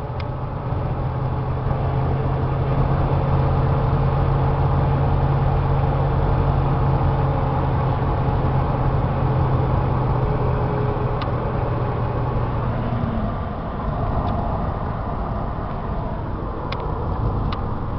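1998 GMC 3500 pickup's 6.5-litre turbo diesel V8 and road noise, heard from inside the cab while cruising at about 55 mph. A steady low drone runs under the road noise and drops away about thirteen seconds in.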